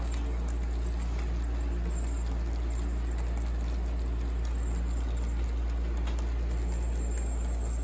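Model freight train rolling along the layout track: a steady low hum and rumble of the locomotives and wheels on the rails, with a few faint clicks.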